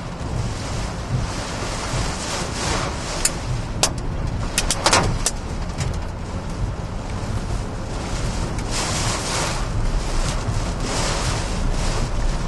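Hurricane-force wind and driving rain rushing against a moving car, buffeting the microphone in gusts. A cluster of sharp knocks comes about three to five seconds in.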